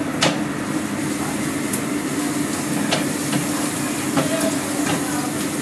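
Steady hum and hiss at the stove, with a few sharp clicks as a slotted spatula knocks against a nonstick frying pan on a lit gas burner.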